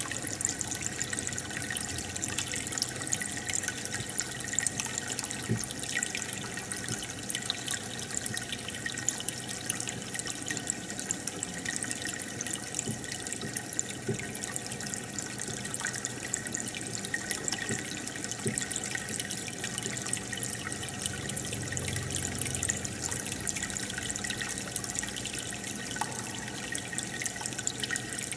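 Aquarium water bubbling and trickling steadily: a stream of air bubbles rising and the filter's water running, with many small pops and drips.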